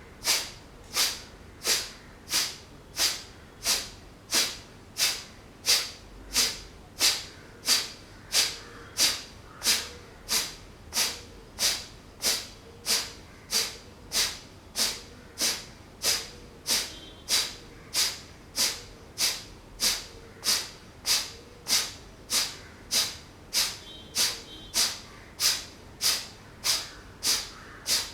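Kapalabhati breathing: a steady rhythm of short, forceful exhalations snorted out through the nostrils, about three every two seconds, each a sharp hissing puff.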